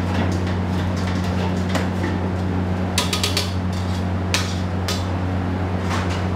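Metal spatula and ladle clanking against steel cooking pans while stirring: a quick cluster of clanks about three seconds in, then single knocks a little later, over the steady low hum of a commercial kitchen.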